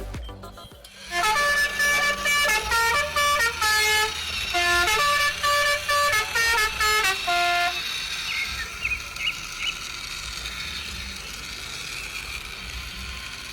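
A vehicle horn tooting out a quick tune of short honks at changing pitches for several seconds. After that come a steady hiss and faint chirps.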